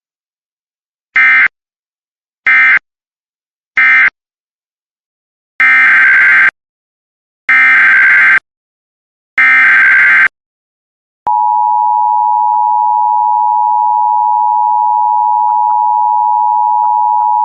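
Emergency Alert System SAME signalling. Three short data bursts (the end-of-message code) close the previous alert, then three longer header bursts open the next one. About two-thirds of the way through, the steady two-tone EAS attention signal starts and holds.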